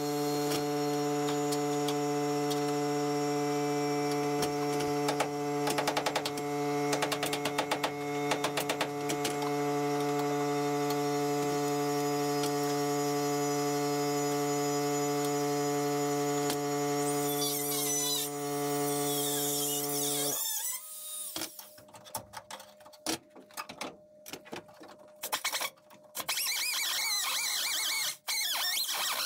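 A steady, pitched electrical hum that holds one pitch, with a few short ticks over it, stops abruptly about twenty seconds in; scattered clicks and knocks follow.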